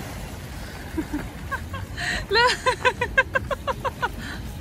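A gull's long call: after one longer arched note about two seconds in, a rapid run of about a dozen short pitched calls, about six a second, lasting under two seconds. Surf washes over the rocks underneath.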